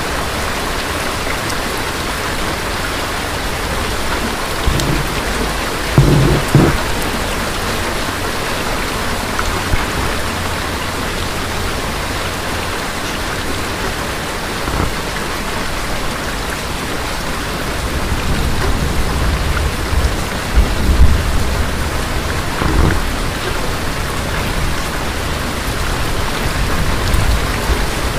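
Steady rain with thunder: a short, sharp clap of thunder about six seconds in, then a longer low rumble of thunder through the second half, loudest a little past the middle.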